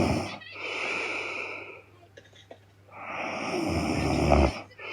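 A woman snoring heavily in her sleep. A rattling snore trails off at the start and is followed by a breathy breath. After a short pause, a second loud rattling snore builds from about three seconds in, then another breathy breath comes near the end.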